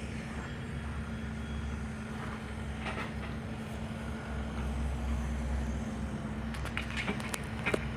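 Diesel engines of heavy earthmoving machinery running steadily with a low rumble and a held hum, swelling a little over halfway through. A few short sharp knocks and clicks come near the end.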